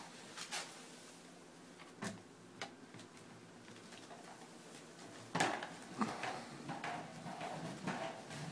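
Gerbil's plastic exercise ball rolling and knocking on a hardwood floor: scattered clicks and knocks, a few at first, then a busier run of them in the second half.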